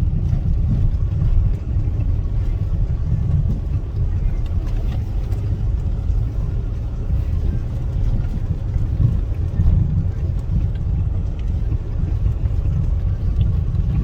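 Steady low rumble of a car on the move, with faint scattered ticks over it.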